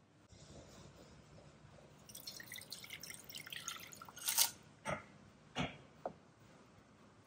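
Sauce poured from a glass measuring jug into a saucepan: a patter of small splashes and drips, ending in four sharp ticks spaced about half a second apart as the pour finishes.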